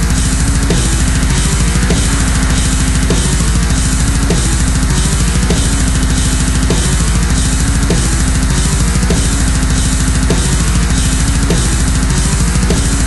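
Loud heavy metal music with fast, driving drums and a repeating riff.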